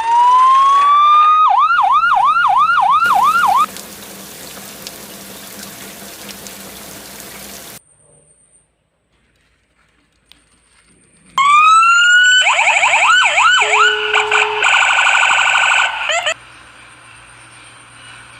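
Emergency-vehicle siren: a slow wail that switches to a fast yelp, then a hissing stretch and a brief silence. The siren then winds up again and runs into a rapid yelp and warble before cutting off.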